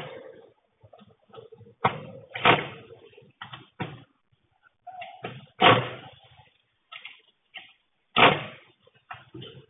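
A string of sharp knocks and clunks, some with a short ring, roughly one to two seconds apart, from hard objects being handled and set down on a work table.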